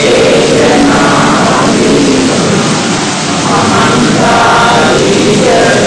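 A person's voice, heavily masked by a loud, steady hiss.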